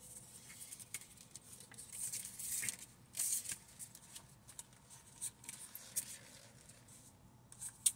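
A deck of oracle cards being shuffled by hand: soft, irregular rustling and flicking of cards with small clicks, loudest about two to three seconds in.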